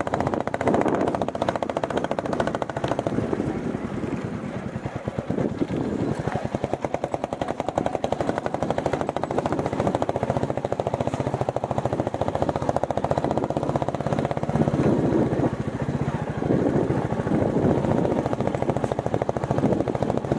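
Royal Enfield Bullet 350's single-cylinder engine running under way, a rapid, steady stream of thumping firing pulses that swells a little in loudness about three-quarters of the way through.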